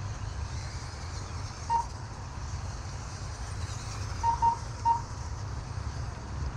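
Short electronic beeps from an RC race lap-counting system as buggies cross the timing line: one beep about two seconds in, then three in quick succession past the middle. They sit over a steady low rumble.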